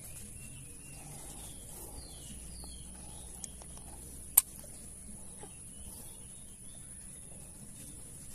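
Riverbank ambience: a steady high-pitched insect drone with brief bird chirps, and one sharp click about four seconds in.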